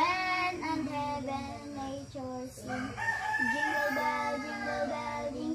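A young boy singing a Christmas carol in phrases, with a long held note about halfway through.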